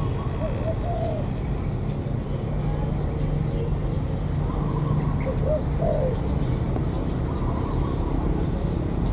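Spotted dove cooing: a short phrase of low coos near the start and another about five seconds in, over a steady low rumble.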